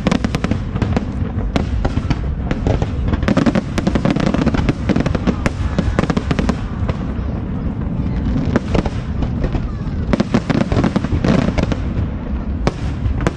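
Fireworks display: a dense, continuous barrage of sharp bangs and crackling over a steady low rumble.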